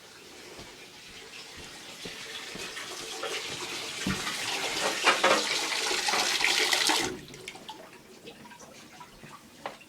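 Water running from a tap, building up over several seconds, then shut off abruptly about seven seconds in.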